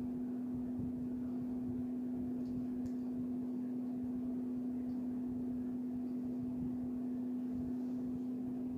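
A steady low hum at one unchanging pitch, over faint room noise.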